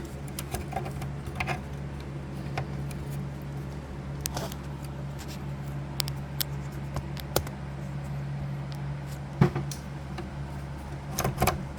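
Scattered light clicks and taps of metal score-reel parts being handled and fitted back into an electromechanical pinball machine, with one louder knock past the middle and a quick run of clicks near the end, over a steady low hum.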